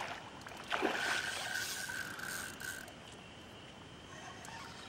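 Fishing reel's drag giving line with a steady whine for about two seconds, starting suddenly under a second in, as a hooked striped bass runs.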